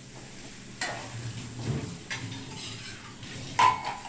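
A steel ladle knocking and scraping in a steel kadai as rice roasted in its tempering is stirred. Near the end comes one loud, ringing clank of metal on metal.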